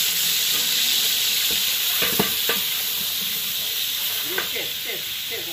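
Oil sizzling steadily in a large aluminium stockpot as ingredients fry, with a long metal ladle stirring them and knocking against the pot a few times about two seconds in.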